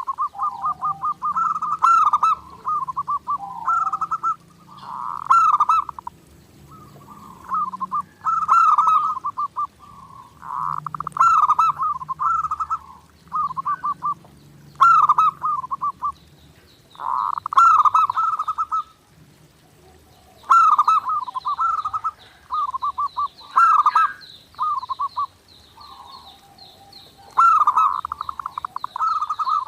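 Zebra doves (perkutut) cooing vigorously, one rapid staccato phrase after another about every second or two. A faint high thin trill comes in past the middle and runs on behind them.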